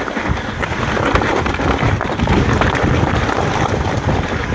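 Mountain bike riding down a narrow trail: a steady rush of tyre and wind noise with scattered knocks and rattles from the bike.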